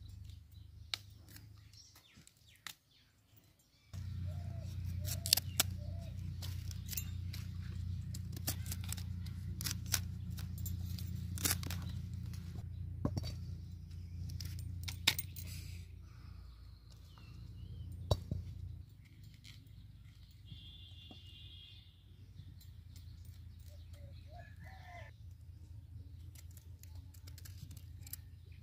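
Cauliflower florets being cut from the head with a knife and dropped into an empty metal pan: scattered light clinks and knocks on the metal, over a steady low rumble that eases off a little past halfway.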